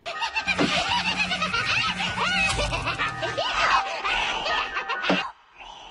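Horror-themed channel intro sting: music with laughter over it. It ends about five seconds in, leaving a short faint tail.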